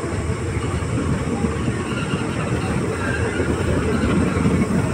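Indian Railways passenger coaches rolling past along the track: a steady rumble of steel wheels on the rails.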